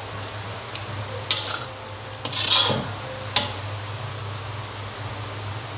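Metal ladle clinking and scraping against a metal wok as cooked taro and leaves are scooped out for serving: a few sharp clinks and one longer scrape about halfway through, over a low steady hum.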